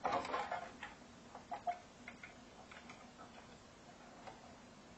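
Small clicks, knocks and rattles of hands working the front control circuit board of an Ampeg VT-120 tube amp loose from its metal chassis: a busy cluster of rattles at the start, then scattered single ticks.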